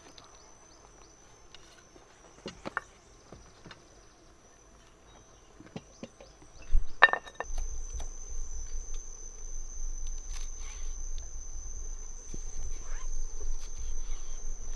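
Insects shrilling steadily at a high pitch, with scattered small clicks and knocks of food and utensils being handled on a wooden board. About seven seconds in comes a sharp clatter, the loudest sound, after which a low rumble and a run of small knife-and-board taps go on.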